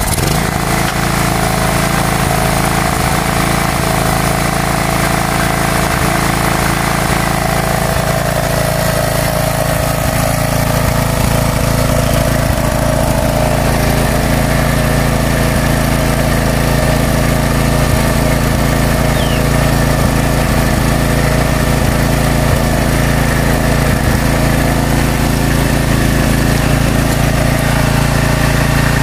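Small generator engine catching and then running steadily after a hard start. Its pitch settles slightly about eight seconds in.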